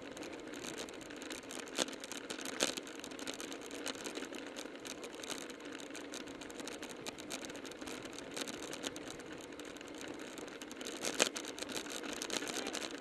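Steady wind and road noise on a bike-mounted ContourHD camera while riding at about 25 mph, with a few sharp clicks, the loudest about eleven seconds in.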